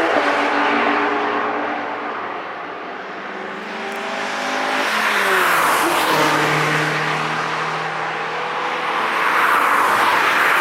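Cars passing by one after another at speed on a race track, engines running at high revs. The loudest passes come near the start, about six seconds in and near the end, and one engine's pitch falls as it goes by about five seconds in.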